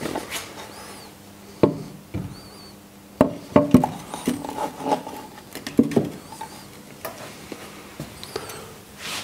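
Heavy metal table of a Thörns T2 tool grinder being set and worked onto its slideways by hand: a run of irregular metal-on-metal knocks and clunks with scraping in between.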